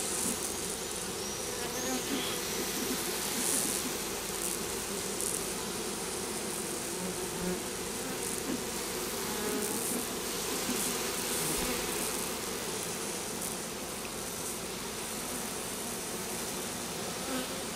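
Honeybees buzzing steadily in large numbers around an opened hive while the colony is being moved into new hive boxes.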